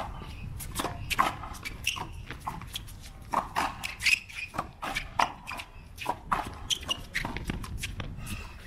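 Racquetball rally on an outdoor concrete court: a quick series of sharp pops as the ball comes off the racquet strings and the concrete front wall, with shoes scuffing on the concrete between shots.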